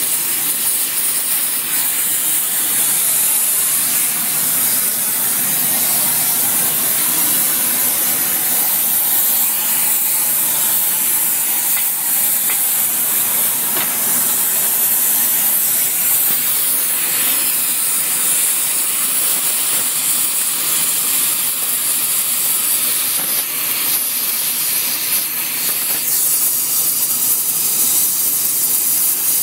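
Gas torch flame hissing steadily as it heats a steel hammer to braze on a hardfacing cord.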